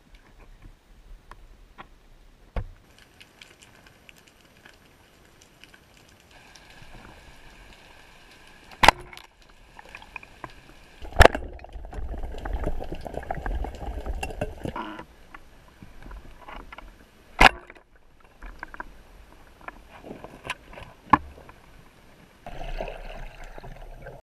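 Gurgling, bubbling water heard through an underwater camera, with a few sharp knocks. The loudest comes about eleven seconds in, followed by several seconds of rushing bubbles.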